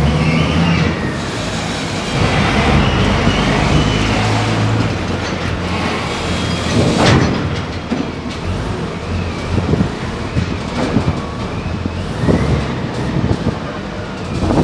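Linde reach stacker's diesel engine running steadily while it handles a container with its raised boom and spreader. A sharp knock comes about halfway through, with several smaller knocks after it.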